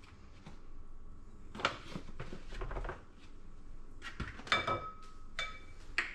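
Kitchen utensils being handled at a mixing bowl: soft scraping and knocks as a measuring cup is used over the bowl, then a few short ringing clinks, like a metal measuring cup or spoon tapped against the bowl or counter, twice in the second half.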